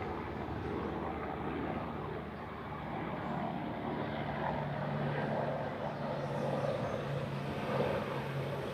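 Steady engine drone, getting louder about three seconds in.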